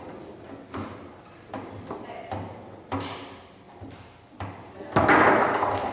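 Foosball play: the ball and the table's rods and figures knock with sharp clicks about once a second as the players pass and control the ball, then a loud, sudden clatter about five seconds in.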